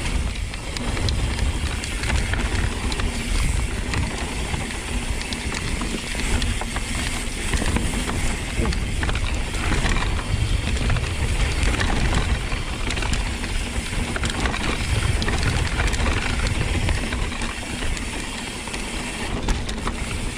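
Mountain bike riding down a rough dirt trail: steady wind rumble on the action camera's microphone, with tyre noise and a constant rattle and clicking from the bike.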